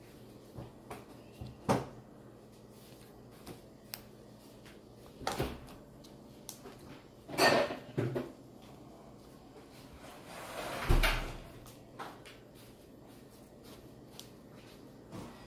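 Slime being mixed and worked by hand: irregular short sticky clicks and squishes, with a few louder ones about halfway through and a dull thump about three-quarters of the way in.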